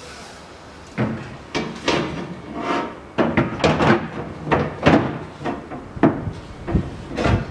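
Aluminium spare-wheel bracket knocking and clunking against the Land Rover Series III's aluminium rear body tub as it is set into place by hand. The irregular run of sharp knocks starts about a second in.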